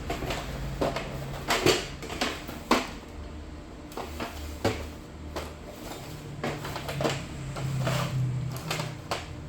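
Irregular sharp clicks and knocks, a dozen or so spread unevenly, as a Canon MX366 inkjet printer is worked on by hand during an ink cartridge change, over a low steady hum.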